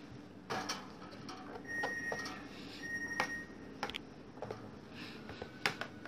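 Damp cloth wiping the black plastic lid of a canister vacuum cleaner: soft rubbing with scattered light knocks of handling, and two brief high-pitched squeaks about two and three seconds in.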